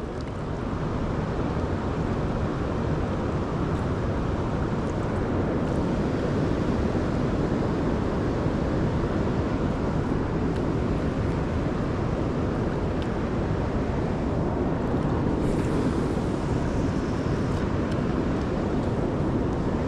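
Steady rushing noise of a river's current, even and unbroken.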